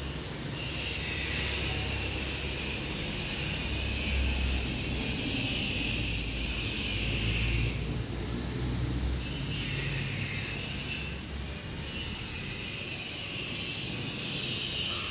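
Chalk scraping and squeaking on a blackboard as equations are written, in long scratchy strokes with brief pauses, over a steady low hum.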